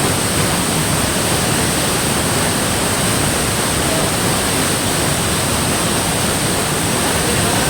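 Waterfall pouring: a loud, steady rush of falling water with no breaks.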